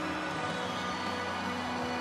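Music with long held notes that shift in pitch.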